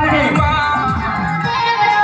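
Music: a song with a sung or melodic line over a steady beat.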